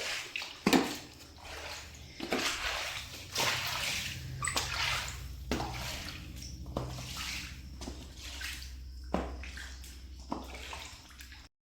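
Water sloshing and splashing in a string of separate swishes, roughly one a second, over a faint steady low hum; it stops just before the end.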